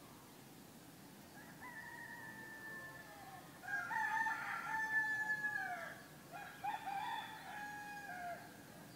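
Roosters crowing: three long crows one after another, the loudest about four seconds in, each falling off in pitch at its end.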